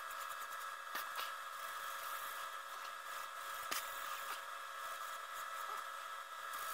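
Faint steady hum of room noise, with a few light clicks and taps from a stained wooden pistol stock being handled and turned in gloved hands.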